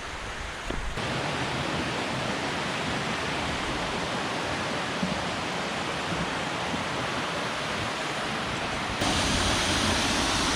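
Steady rushing water, a dense even roar. It steps up louder about a second in, and again, louder and brighter, near the end.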